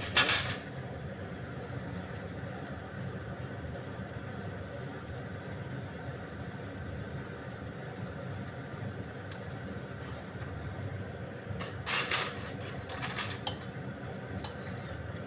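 Steady low rushing of biscuits deep-frying in a pan of oil on a gas stove, with a few sharp metal clinks of a wire strainer against the pan right at the start and again around twelve and thirteen seconds in.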